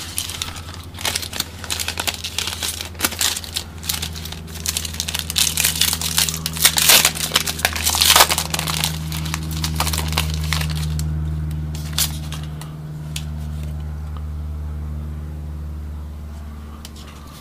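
Foil trading-card pack being torn open and its wrapper crinkled by hand, in dense crackles that are loudest about halfway through and thin out after. A steady low hum runs under the second half.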